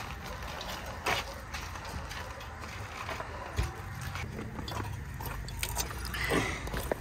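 A steady low outdoor rumble with a few separate knocks and clinks of burned metal objects being handled, and a quick run of clicks near the end.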